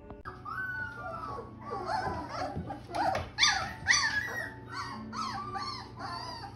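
A young Shepsky puppy whining and yelping: a long falling whine, then a string of short high-pitched cries one after another, loudest about three to four seconds in.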